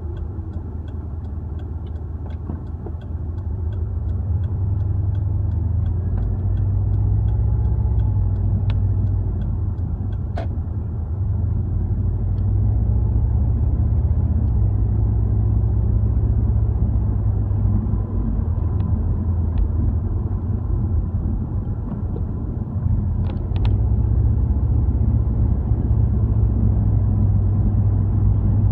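Low, steady rumble of a car's engine and tyres on the road, heard from inside the cabin, growing louder about four seconds in and again a little after twenty seconds. A faint regular ticking, about two a second, runs through the first several seconds.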